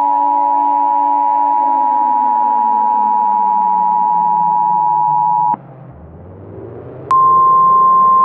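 Emergency Alert System attention tone: a loud steady electronic beep over a deep drone that slides down in pitch. The beep cuts off suddenly about five and a half seconds in, a quieter rising sweep follows, and a slightly higher steady tone starts about a second and a half later.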